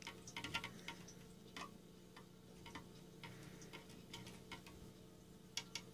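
Faint clicks, roughly two a second, of a plastic stirring straw knocking against the sides of a small plastic Sea-Monkeys tank as the water is stirred, over a faint steady hum.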